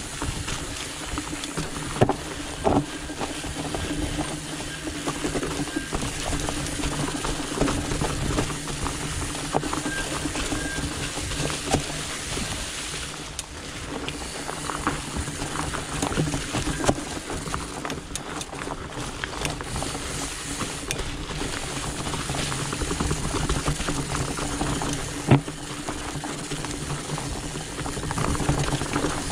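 Trek Farley fat bike being ridden over a trail: tyres rolling with a steady low hum under a rushing noise, and a few sharp knocks and rattles from the bike over bumps.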